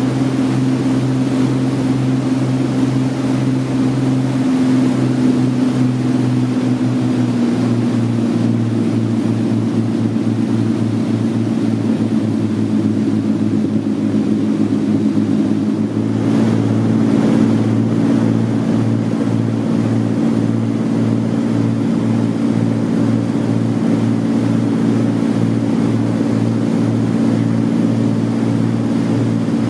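Marine engine running steadily under way at speed, with water and hull noise over it; its pitch drops slightly about seven seconds in.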